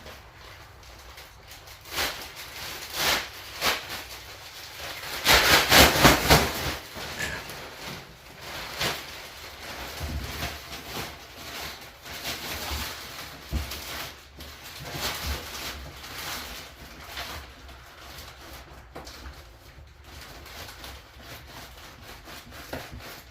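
Packing material rustling and crinkling as it is handled, with scattered knocks and a loud burst of rustling about five seconds in.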